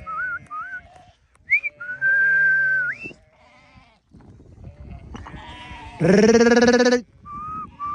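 A flock of sheep bleating. There are a few thinner, higher calls in the first seconds, then one loud, long, quavering bleat about six seconds in.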